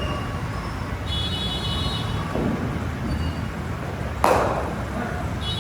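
A single sharp crack about four seconds in, ringing briefly, over a steady low rumble.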